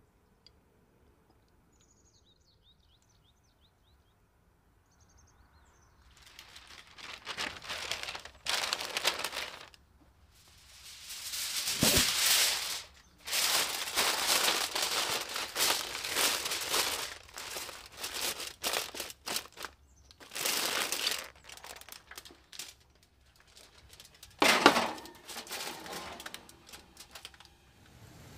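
Parchment paper and aluminium foil crinkling and rustling in repeated bursts as they are pressed and folded over a roasting tray. The sound starts about six seconds in and has one sharp, loud crackle near the end.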